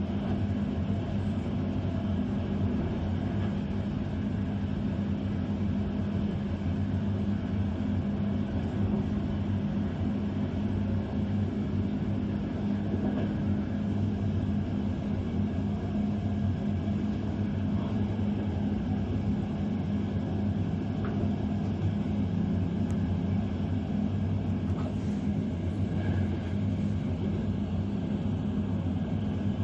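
Electric passenger train running steadily along the track, heard from inside the train: an even low rumble with a steady hum beneath it.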